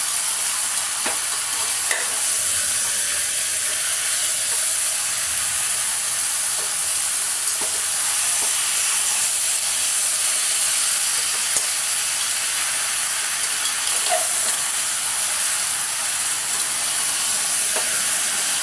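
Chicken pieces frying with onions in hot oil in a pan, a steady high sizzle, with a few light clicks of the spoon stirring them.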